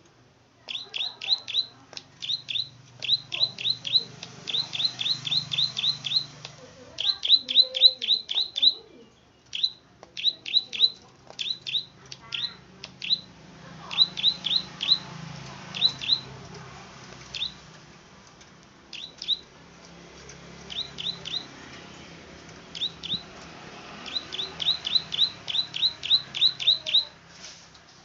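Prenjak padi (plain prinia) calling: sharp, high, down-slurred 'klik' notes given in quick runs of several, about five a second, with short pauses between runs. The calls are loud and persistent.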